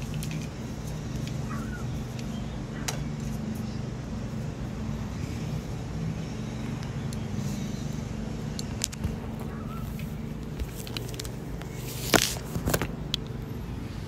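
Steady low hum of a running vehicle, with scattered light clicks and a sharper knock about twelve seconds in.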